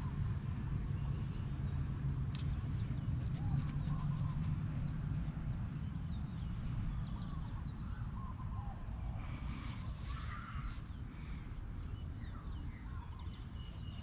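Outdoor ambience by still water: a steady low rumble, a thin high steady tone, and scattered short bird chirps.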